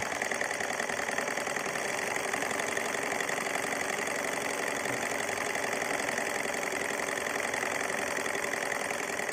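Small model Stirling engine running fast with a steady, rapid mechanical clatter as it drives a belt-driven flywheel without speed reduction.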